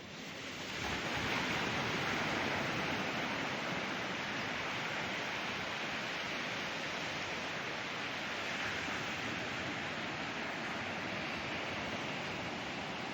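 Ocean surf on a beach: a wave breaks about a second in, and the rush of surf and foam then carries on steadily.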